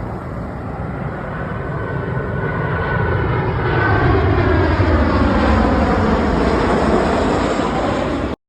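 Steady roar of aircraft engines, growing louder with a faint whine that slowly drops in pitch, then cutting off suddenly near the end.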